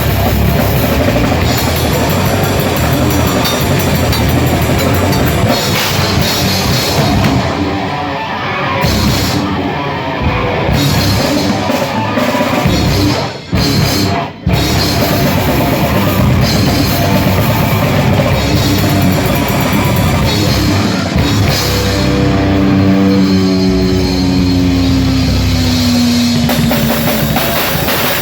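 Grindcore band playing live: distorted guitars and bass over a fast drum kit, loud and dense. It stops short twice in quick succession about halfway, and later held notes slide down in pitch.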